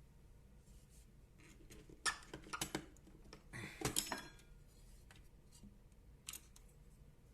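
Small hard parts being handled: a few sharp clicks and clinks, bunched about two seconds in and again about four seconds in, with a single click near the end.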